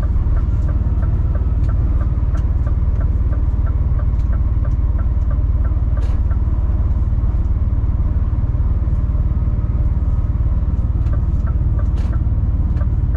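Diesel engine of a 26-tonne rigid lorry running: a steady low drone with a light, even ticking of about three a second.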